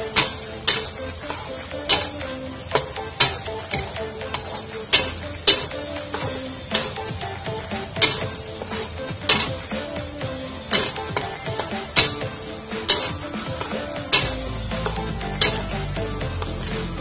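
A metal spatula scrapes and clacks against a metal wok as a thick spice paste with carrots is stir-fried, over a steady frying sizzle. The clacks come about once a second and stop about fourteen seconds in, leaving the sizzle.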